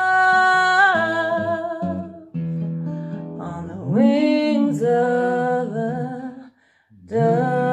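A woman's voice singing long, drawn-out notes with vibrato over an acoustic guitar, one note sliding up into a held tone about four seconds in. The sound breaks off briefly about six and a half seconds in, then a new held note begins.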